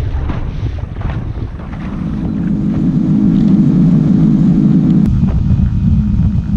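Wind buffeting the microphone over choppy water for about two seconds. Then a small fishing skiff's motor runs at speed, a steady low drone with wind rush over it.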